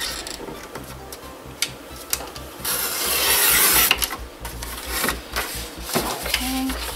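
A sliding paper trimmer's blade drawn along its rail, cutting through a sheet of paper: one long swish about a second and a half long, starting a little under halfway in, with lighter clicks and taps around it.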